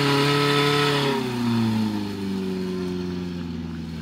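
Portable fire pump engine running at high revs, then slowing with a falling pitch about a second in and settling to a lower, steady run as it is throttled back at the end of the fire attack.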